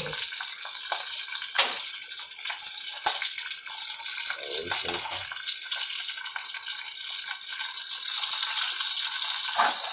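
Bacon frying in a pan: a steady sizzle with a few sharp pops.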